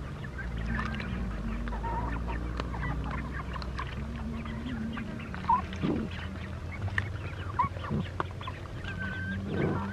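Chickens clucking and young ducks peeping as they feed together, with many short ticks of pecking and eating.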